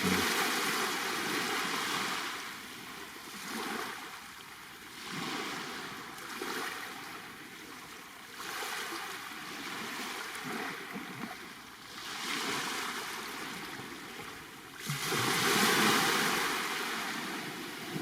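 Black Sea waves washing onto the shore and drawing back, a rising and falling hiss in repeated surges, the biggest wash near the end.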